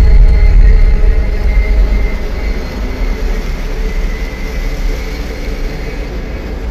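Dark, loud low rumbling drone from the film's score or sound design. It swells in suddenly at the start and holds steady, slowly easing, with faint sustained tones above it.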